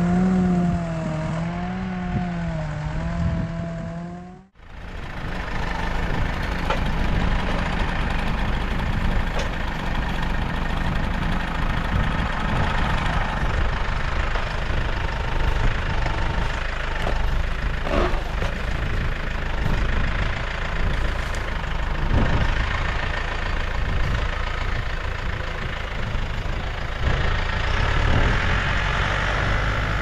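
Case IH Farmall 75C tractor engine running while its front loader handles the felled tree, with a few short knocks. For the first four seconds a long wavering pitched tone sounds over it, then cuts off abruptly.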